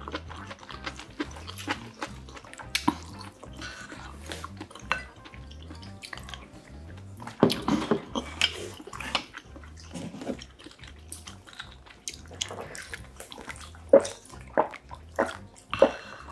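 Close-miked eating: chewing and mouth sounds with small clicks of chopsticks and spoon on dishes, over soft background music with a steady low beat. In the last few seconds, a run of regular swallowing gulps while drinking water from a glass.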